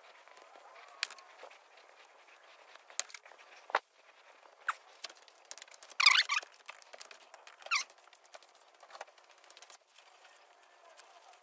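Intermittent short squeaks and rubbing scrapes as plastic wheel center caps are handled and wiped down for painting, with the loudest rubbing about six seconds in.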